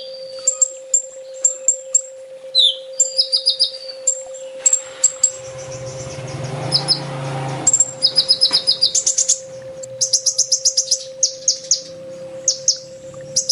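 Kolibri ninja sunbird singing: rapid high, thin chirps and short trills in quick bursts, with a steady low electrical hum underneath and a brief patch of rougher background noise in the middle.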